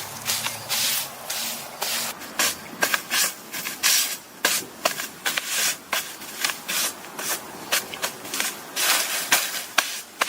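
Irregular, hissy rustling and scraping, a quick string of short strokes with a few sharp clicks among them, like something being rubbed or brushed against a dry surface.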